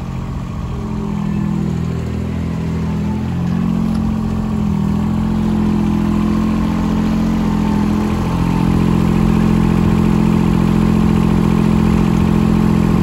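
John Deere 455 garden tractor's liquid-cooled three-cylinder Yanmar diesel running steadily as the tractor is driven, its pitch shifting slightly a few times, then rising a little and getting somewhat louder about eight seconds in.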